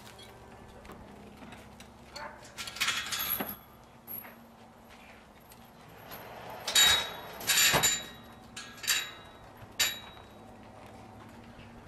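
Metal gate clanking and rattling in a few sharp bursts with a ringing metallic tone: one rattle early on, then a quick run of clanks, the loudest about seven seconds in.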